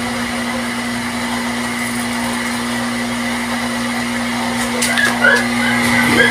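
MaxiPro electric water pump motor running with a steady hum, just switched back on; it is spinning without drawing water because air is still trapped in the suction pipe. A dog yips a few times near the end.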